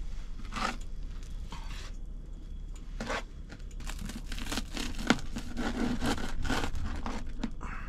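A knife sawing through a crispy, pan-toasted grilled cheese sandwich: a run of irregular scratchy, crunching strokes as the blade cuts the toasted crust.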